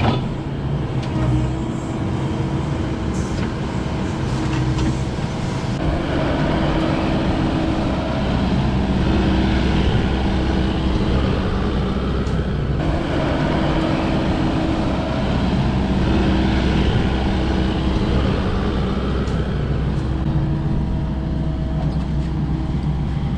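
Kubota KX080 excavator's diesel engine running under load, its hum and hydraulic whine rising and falling as the boom and thumb are worked to grab and lift a chunk of concrete.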